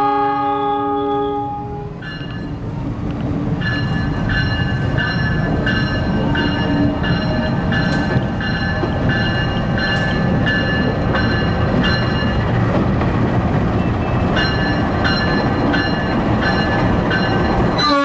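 An Indonesian locomotive's horn blast, the Semboyan 35 signal, cuts off about a second and a half in. A passing train's rumble follows, with a level-crossing warning bell ringing about every half second and pausing briefly past the middle.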